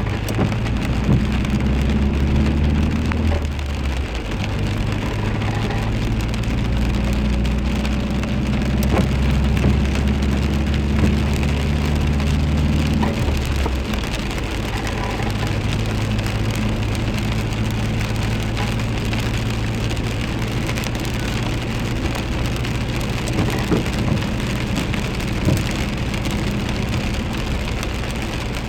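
Steady rain falling, with a deep low rumble underneath that drops away about halfway through.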